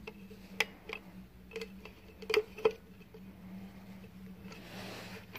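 Faint scattered clicks and taps of a small green gas can being pressed and twisted by hand into an airsoft microgun's gas chamber, over a low steady hum. A brief soft hiss comes near the end.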